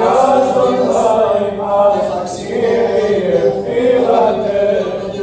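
Men's voices chanting Byzantine Orthodox church chant, in phrases of held notes that rise and fall.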